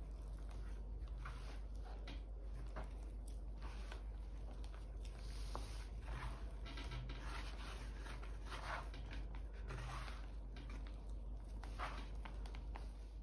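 Hands working a soft, wet flour-and-yeast dough in a bowl, squeezing and folding it: faint, irregular short rubbing strokes.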